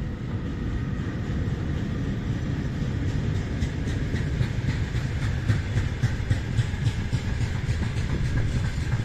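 Train rolling past over a steady low rumble, its wheels clicking over rail joints, the clicks coming thicker from about three seconds in.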